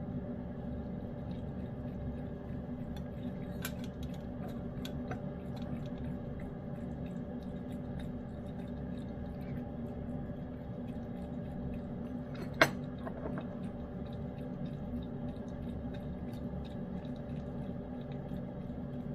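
A lynx point cat eating wet cat food in gravy: many faint, irregular wet clicks of chewing and licking, with one sharp click against the dish about two-thirds of the way through, over a steady low hum.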